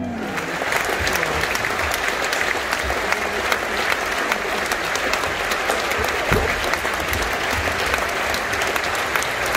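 Large audience applauding, many hand claps blending into a steady, dense wash of clapping.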